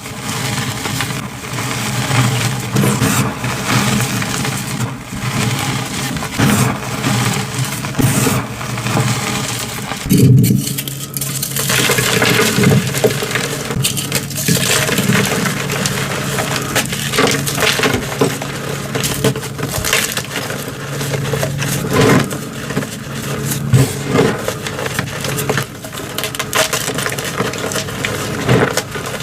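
Reformed gym chalk being crushed by hand: dense, crunchy crackling and snapping with many sharp clicks as the chalk blocks break and crumble.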